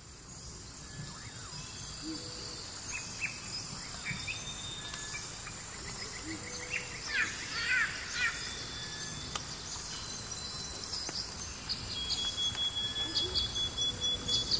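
Forest ambience: birds chirping and calling over a steady high-pitched insect drone, with a thin, steady insect whine joining about twelve seconds in.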